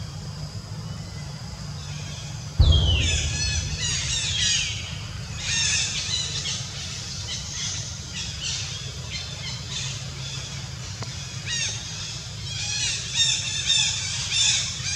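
High-pitched squeals and screeches of long-tailed macaques, coming in bursts of short sweeping cries, after a low thump about two and a half seconds in.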